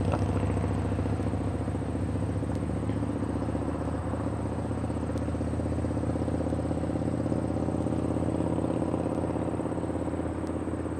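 A steady low motor hum that holds one pitch throughout, with a few faint ticks.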